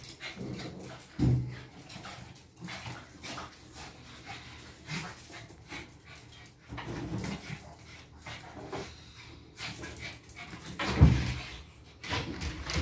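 Shih Tzu dogs vocalising at play, short whimpers and yaps at intervals, the loudest about eleven seconds in.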